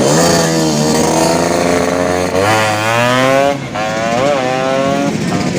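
Tuned two-stroke Vespa racing scooter engine revving hard. Its pitch climbs steeply about two and a half seconds in, drops sharply for a moment as it changes gear, then climbs again.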